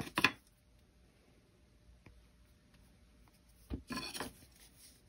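Quiet handling of jewelry pliers on gold-fill wire as a wrapped hook is pushed over on a wire bundle: a faint click just after the start, then a short cluster of clicks and rubbing about four seconds in.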